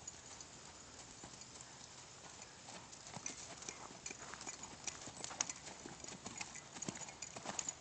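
Hoofbeats of a saddled horse loping on soft dirt arena footing: quiet at first, then clear, quick hoof strikes from about three seconds in, growing louder as the horse comes near.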